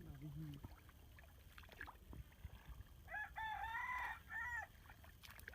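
A rooster crowing once about three seconds in: a multi-part cock-a-doodle-doo with short opening notes, a long held middle note and a shorter closing note.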